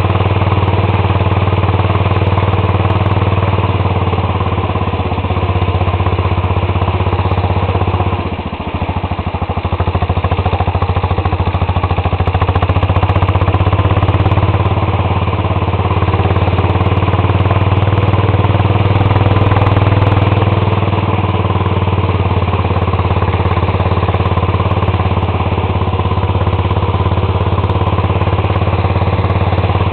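Riding lawn tractor's small engine running steadily at speed, its level dipping briefly about eight seconds in before picking back up.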